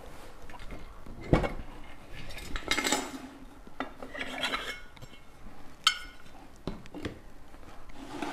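Machined aluminium engine parts handled on a workbench: a sharp knock just over a second in, then metal sliding and scraping against metal in a couple of stretches, with a few light clicks and clinks.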